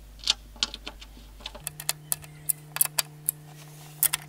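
Irregular sharp metallic clicks from a hand tool tightening the hinge bolts of a gullwing rear window, a few clicks at a time.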